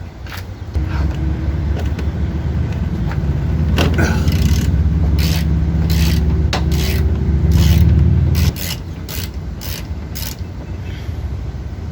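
Ratchet working the 14 mm bolts out of a transmission mount. A loud, steady mechanical rattle starts about a second in and cuts off suddenly past eight seconds, followed by a few softer clicks.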